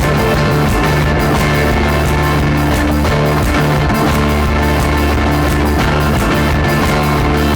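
Rock music: a band recording with guitar over a steady drum beat.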